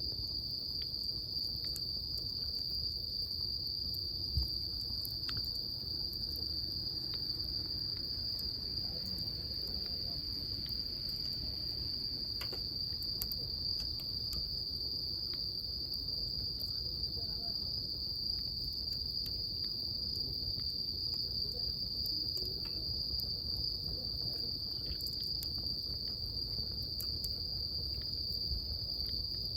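Insects trilling in one steady, unbroken high note, with scattered sharp pops and crackles of a wood bonfire and a low rumble beneath.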